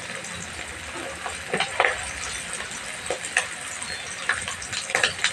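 Chicken pieces deep-frying in a wok of hot oil: a steady sizzle with sharp crackles and pops now and then.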